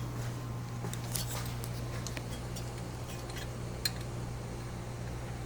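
Scattered light metallic clicks and clinks of bolts and tools being handled while bolts are threaded in by hand, with one sharper click about four seconds in, over a steady low hum.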